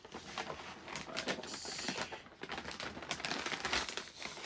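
Plastic FedEx shipping mailer crinkling and rustling as it is opened and handled, a dense run of irregular crackles.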